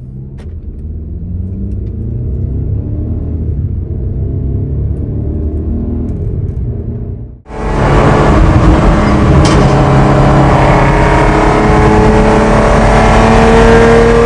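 Jaguar's engine heard from inside the cabin in dynamic mode, accelerating, its note rising. About seven seconds in it cuts abruptly to the louder exhaust of a classic Datsun Z-car cruising on a highway, holding a steady note.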